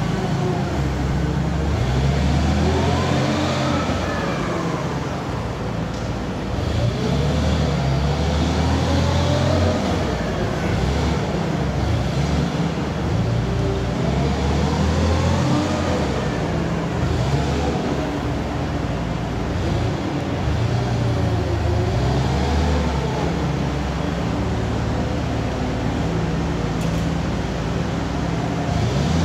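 Caterpillar GC70K LPG forklift's engine running as the truck is driven, its speed rising and falling about four times as it pulls away, turns and comes back.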